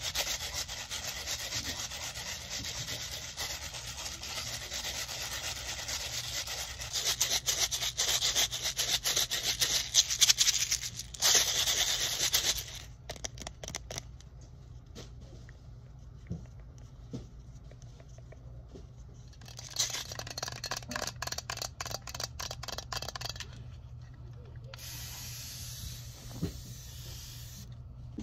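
Long fingernails tapping and scratching rapidly on plastic Downy scent-booster bottles. The tapping is busiest and loudest for the first dozen seconds and again for a few seconds past the middle, lighter in between.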